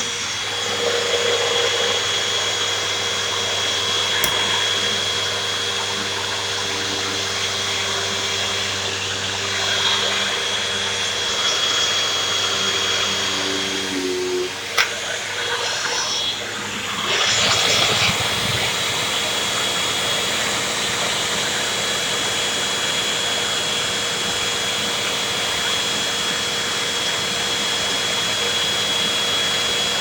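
Hoover Rewind upright vacuum cleaner running steadily with a constant high whine as it is pushed over carpet to suck up pieces of soft black licorice. Its lower hum changes about halfway through.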